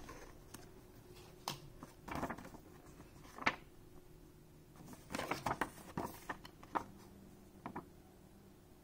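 Cardboard packaging and glossy paper inserts of a card-game bundle box being handled: scattered taps, clicks and rustles, with a sharp tap about three and a half seconds in and a quick run of rustles around five to six seconds in.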